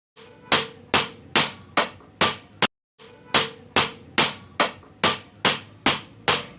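Hammer blows on copper sheet in a steady rhythm of about two to three strikes a second, each with a short metallic ring. About fourteen blows in all, with a brief break after the sixth.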